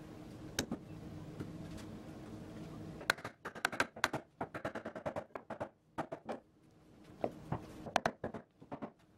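A steady low hum, then from about three seconds in a run of sharp knocks and taps, several a second, as a mallet drives a domino-jointed top plate down onto a glued wooden X-frame leg.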